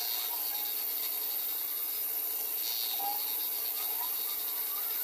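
Manual metal lathe running with a steady motor hum while a cutting tool turns the end of a spinning metal bar, a continuous scraping cutting noise over it.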